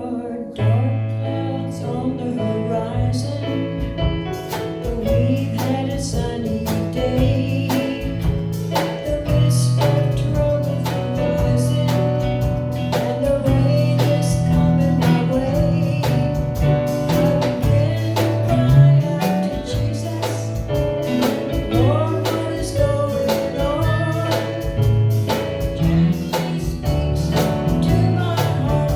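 Instrumental introduction to a gospel song: sustained bass notes and a melody over a steady beat.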